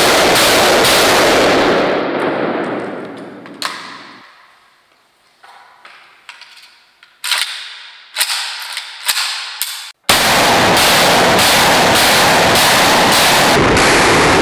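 AKS-74U (5.45×39) firing on full auto, a long string of shots about two to three a second run together into a continuous din. About two seconds in it dies away, leaving a few sharp metallic clicks and clacks from handling the rifle, and just after ten seconds the full-auto fire starts again suddenly.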